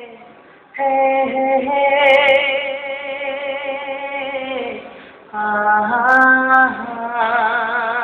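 A single voice singing a Hindi song in long held notes with a wavering vibrato. After a brief quiet start, one note runs from about a second in to nearly five seconds, a shorter one follows, and another begins near the end.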